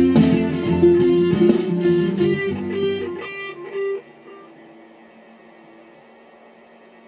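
Squier electric guitar playing picked notes and chords that thin out and die away about four seconds in, leaving a faint steady hum.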